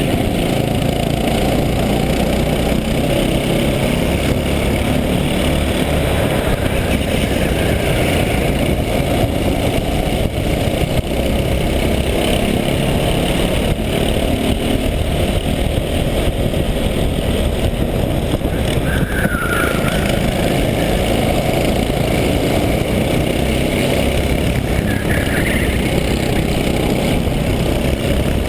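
Racing kart engine running hard close to the onboard camera through a lap, with dense wind and engine noise. Twice in the second half, a brief higher squeal cuts through.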